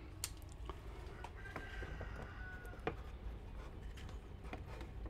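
Scattered light knocks and clicks of a hand tool working at wooden framing in a plywood wall, with a brief thin squeak about two seconds in.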